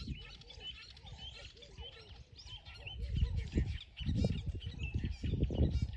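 Several small birds chirping and twittering. A low rumble grows louder about halfway through and then dominates.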